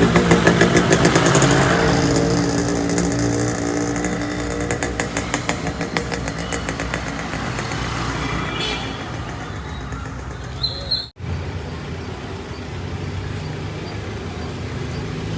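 A motor vehicle engine running steadily, with a rapid pulsing for the first few seconds. The sound breaks off abruptly about eleven seconds in and a similar engine sound resumes.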